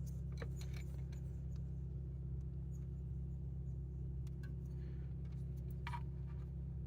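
A steady low hum with a steady tone over it. Scattered faint clicks come from a small plastic coil connector being handled and pried by hand.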